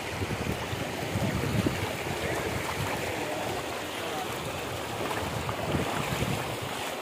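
River water running steadily, with wind rumbling on the microphone.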